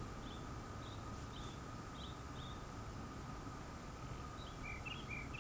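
Faint bird chirping: a short high chirp repeated about twice a second, then, after a pause, a quicker run of lower chirps near the end, over a faint steady hum.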